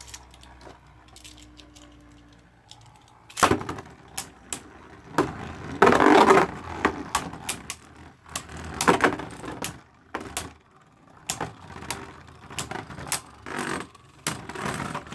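Beyblade spinning tops launched into a plastic stadium and battling, with rapid sharp plastic clicks and knocks as they clash. There is a sudden loud knock about three and a half seconds in, and a denser loud stretch around six seconds in.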